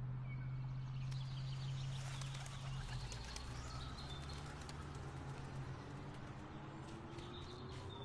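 A flock of birds calling and chirping faintly over a steady low hum.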